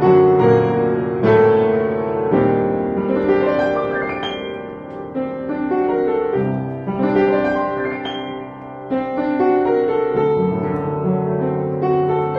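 Upright piano played solo, an improvisation in 3/4 waltz time: chords struck and left ringing, fading between new attacks, the playing swelling and easing in phrases.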